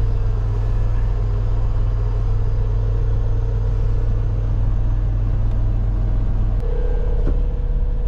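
Semi truck's diesel engine idling with a steady low hum. About six and a half seconds in, the hum changes pitch and a steady higher tone comes up over it.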